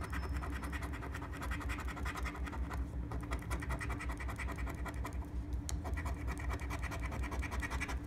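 A coin scraping the scratch-off coating of a paper lottery scratch card in quick, continuous back-and-forth strokes.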